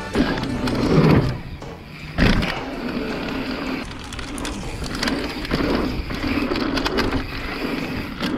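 Mountain bike rolling over hardpacked dirt: a steady rumble and rattle from the tyres and bike, with a couple of thumps, the sharpest about two seconds in.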